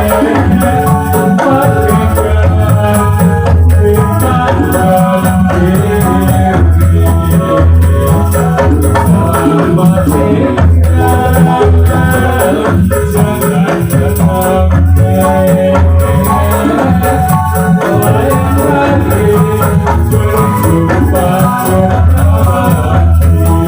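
Ndolalak dance accompaniment music: a loud band with a heavy, steady bass beat and layered melodic instruments.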